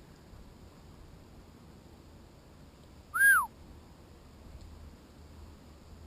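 A bird's single short whistled call about three seconds in, rising and then falling in pitch, over a faint steady background.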